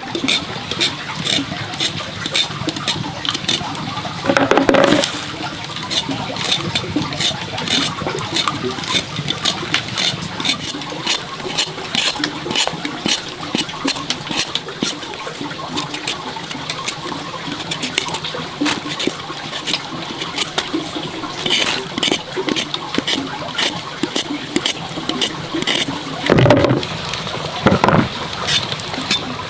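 Water trickling and splashing, with many small irregular clicks throughout and two louder splashy thumps, about four seconds in and near the end.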